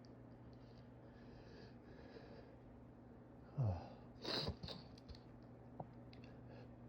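A man sneezes once during a sneezing fit, about four seconds in: a short falling voiced 'ah' build-up, then a sharp sneeze burst. Faint breathing comes before it.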